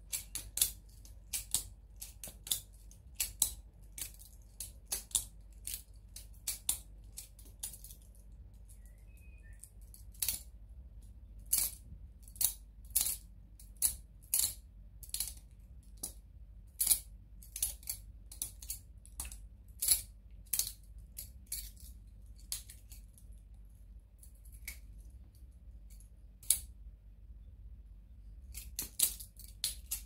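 Cheap blunt trainer balisong being flipped, its metal handles and practice blade clacking against each other in sharp, irregular clicks, about one or two a second, with a couple of short pauses and a quick run of clicks near the end.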